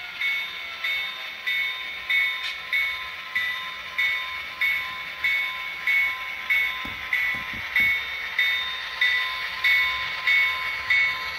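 SoundTraxx sound decoder in an HO scale Athearn Genesis GP9 model diesel locomotive playing its locomotive sounds with the volume up, led by a bell-like ringing strike repeating about every 0.6 seconds over a steady hum.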